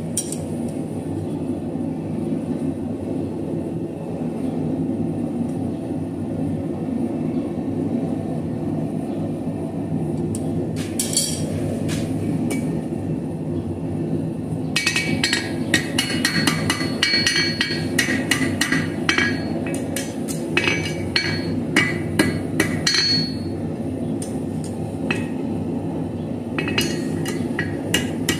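A small hammer strikes a thin piece of steel on an NC anvil in light, rapid blows, each a sharp metallic clink. The blows come in runs: a short one about a third of the way in, a long fast run through the middle and another near the end. A steady low hum runs underneath.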